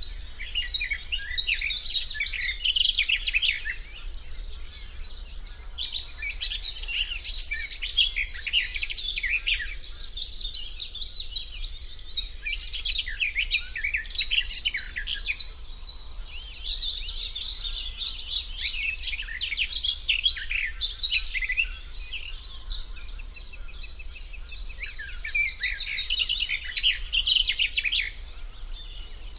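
Eurasian reed warbler singing a long, rapid, chattering song that breaks off briefly now and then.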